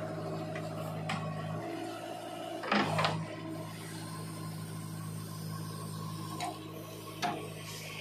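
JCB 3DX backhoe loader's diesel engine running steadily, with a few sharp knocks from the backhoe arm and bucket, the loudest a pair about three seconds in.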